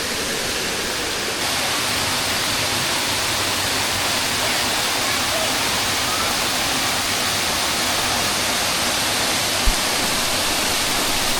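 Steady roar of Machine Falls, a 60-foot waterfall, a dense even rush of falling water; a brief low thump about ten seconds in.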